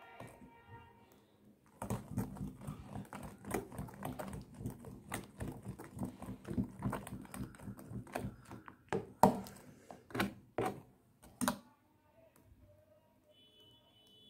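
Metal spoon beating thick semolina batter in a bowl: a quick, irregular run of clicks and taps as the spoon strikes the bowl, with a few louder knocks before it stops about three-quarters of the way in.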